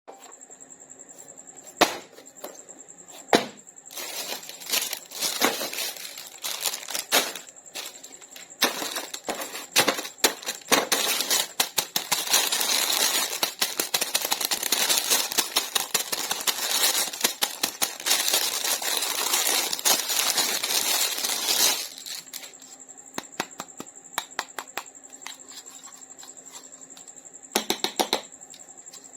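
Toy packaging being handled and opened, with plastic crinkling and clicking: first scattered sharp taps, then a long stretch of dense crinkling and rustling that stops abruptly, then a few more taps near the end. A faint steady high whine sits underneath.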